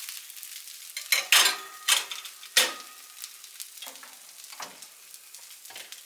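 Freshly air-fried pizza rolls sizzling, a steady hiss with about seven short sharp clicks and scrapes scattered through it.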